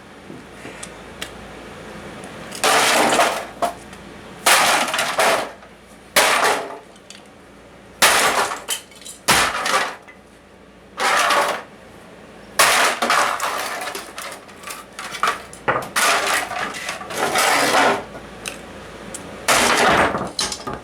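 A plastic humidifier fan being smashed and crushed: about ten separate loud bouts of cracking and crunching, each lasting under a second, a second or two apart.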